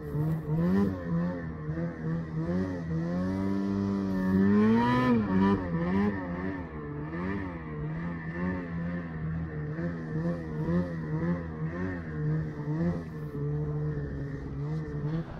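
Snowmobile engine revving up and down while riding through deep powder snow, its pitch wavering constantly, with one long climb and drop about three to five seconds in.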